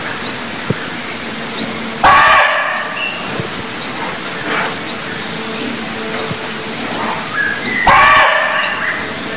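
Red muntjac (barking deer) calling: two loud, short barks about six seconds apart, near 2 s and 8 s. A short, high chirp repeats about once a second between them.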